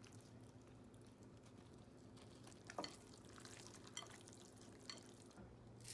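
Near silence: a steady low hum with a few faint, brief handling noises.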